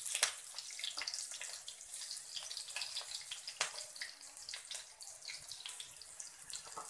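Green chillies, bay leaves and whole spices sizzling in hot mustard oil in a kadhai: a steady high hiss with scattered small pops and crackles.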